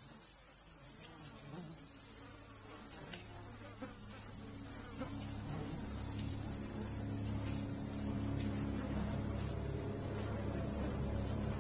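Flies buzzing steadily, with a low, even hum that swells louder from about halfway through.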